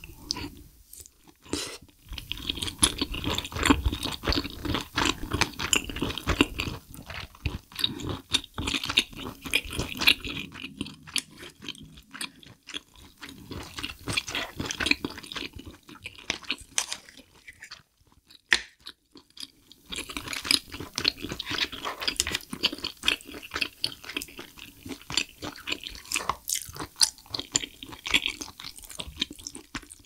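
Close-miked chewing of spicy braised abalone and rice, a dense run of wet, irregular mouth clicks and bites. The chewing eases off for a few seconds a little past halfway, then starts again.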